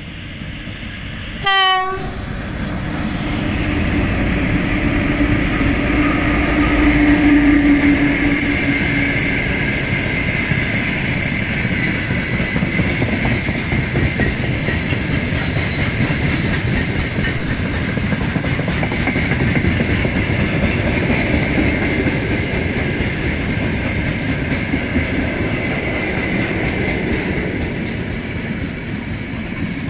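VL10K twin-section electric locomotive gives a short horn blast about one and a half seconds in. It then passes at the head of a long freight train, and a steady rumble of the open wagons' wheels follows, with clickety-clack over the rail joints.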